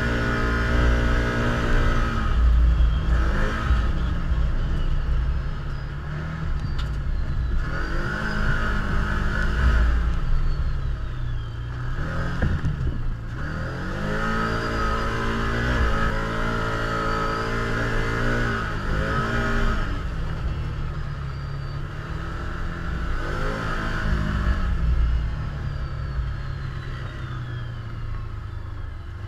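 Can-Am Commander side-by-side's V-twin engine running as it drives along a gravel trail, its pitch climbing and falling back several times as the throttle is worked.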